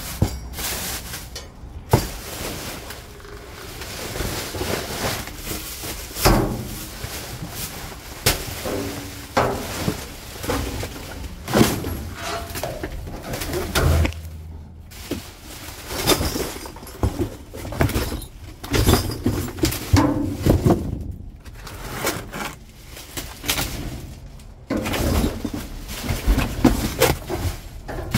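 Rummaging through trash in a dumpster: irregular knocks, clatter and rustling as boxes and items are moved, with some glassy clinks.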